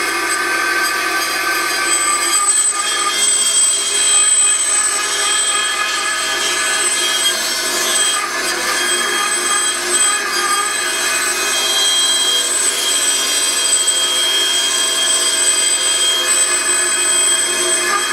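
Bandsaw running and cutting along a long wooden board, a steady machine-and-cutting sound with no breaks.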